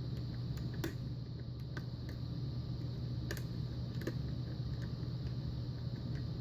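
Faint, irregular metallic clicks of a lock pick tapping the standard pin stacks of a pin-tumbler padlock held under tension, over a steady low hum.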